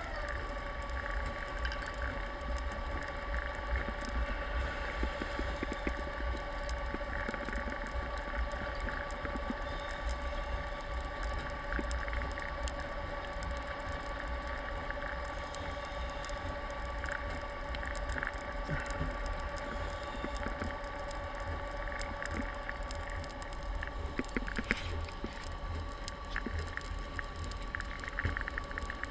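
Underwater ambience picked up through a camera housing: a steady whine from a distant boat motor carried through the water, its pitch dropping slightly at the start, over a low rumble and a constant light crackle.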